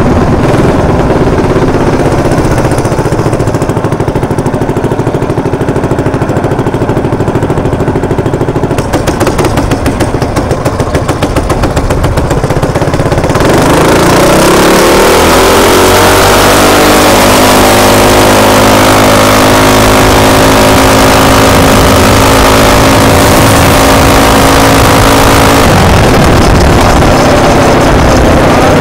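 Predator 224cc single-cylinder engine on an RT200 minibike, built with a flat-top piston and billet rod and running an E50 ethanol blend. It idles, then chugs at low revs for a few seconds. About halfway through, the revs climb and it runs steadily at higher speed with wind rushing on the microphone. The revs drop near the end.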